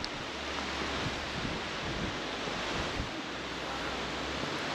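Steady wash of surf breaking along a sandy beach, with wind rumbling on the microphone.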